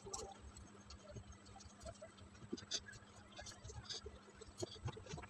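Faint rustling and scratching of bedsheets and pillows being handled, with scattered soft taps and knocks as the bedding is moved.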